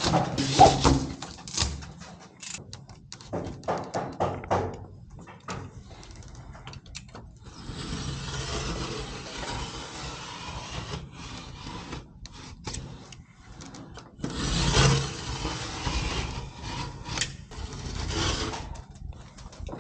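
Hand work on wall boards: a quick run of knocks and taps, then long spells of scraping and rubbing against board, loudest about two-thirds of the way through.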